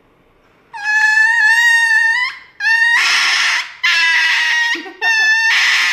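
Small white dog screaming during an injection: several long, high-pitched cries in a row, some rough and rasping, starting about a second in.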